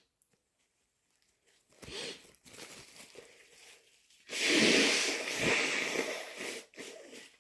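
A person sniffling, then blowing their nose hard for about two seconds, the loudest sound, with a few shorter sniffs after it.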